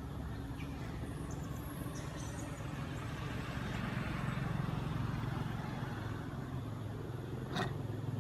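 A motor vehicle engine running with a steady low hum, and a broader rushing noise that swells in the middle. A single sharp click comes near the end.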